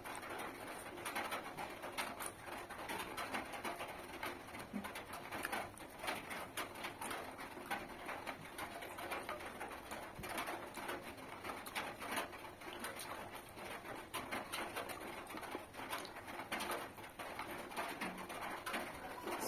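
A person eating by hand close to the microphone: chewing and smacking with many soft, irregular clicks, with a bird calling in the background.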